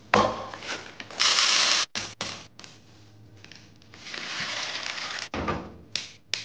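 Quick run of kitchen handling sounds: a knock, a short hiss, then water pouring into a metal pot of beans for about a second, a dull thud, and near the end a sharp snap as an asparagus stalk is broken.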